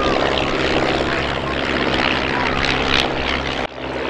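De Havilland Tiger Moth biplane flying past, its four-cylinder Gipsy Major engine and propeller droning steadily. The sound breaks off abruptly about three and a half seconds in and picks up again.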